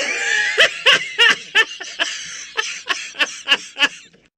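A man's mocking laugh: a run of short 'ha' pulses, about three a second, fading out toward the end.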